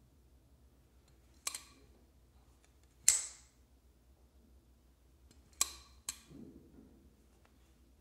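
CJRB 1928-series folding knife's steel blade snapping open and shut: four sharp metallic clicks, single ones about a second and a half and three seconds in (the second the loudest), then a quick pair half a second apart near the end, followed by faint handling rustle.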